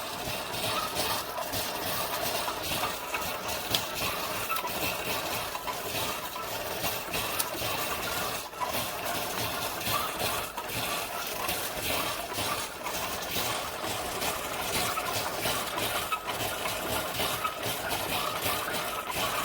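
Single-serve K-Cup coffee maker brewing: its pump runs and water goes through the pod with a steady hiss.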